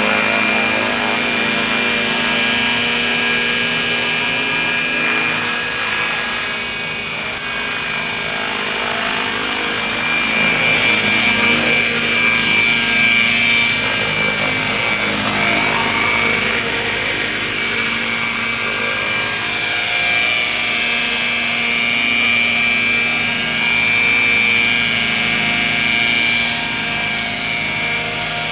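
Align T-Rex 600 radio-controlled helicopter in flight: a steady high whine from its drivetrain over the hum of the spinning rotor blades, swelling and fading a little as it moves around.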